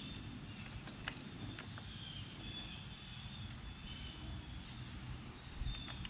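Steady high insect trill over faint outdoor background, with a couple of soft clicks of the metal file guide being set against the saw chain about a second in.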